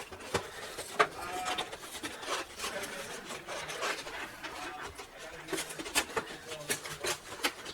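The packaging of a trading-card binder collection being opened by hand: cardboard and plastic rubbing and scraping, with many scattered small clicks and snaps.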